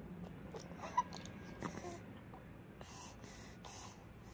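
A baby of about three months mouthing and sucking on her fist, making faint wet mouth clicks and a few short breathy noises.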